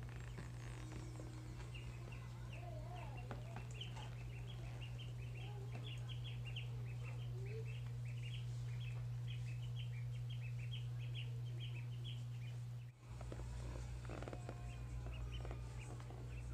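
Ducklings peeping, a rapid run of short high calls from two birds, thickest through the middle, over a steady low hum.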